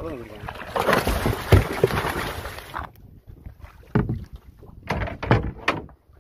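Water splashing and rushing as a hooked tuna thrashes at the boat's side, breaking off sharply about three seconds in. Then several sharp knocks and splashes as the fish is gaffed and hauled against the wooden hull.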